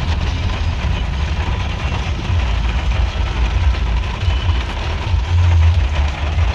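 Moving vehicle: a steady low rumble with road and wind noise.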